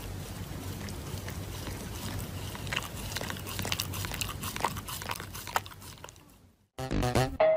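A Shiba Inu chewing and mouthing a sheet of paper, scattered soft crinkles and crackles over a steady low hiss. The sound fades out near the end and electronic dance music begins.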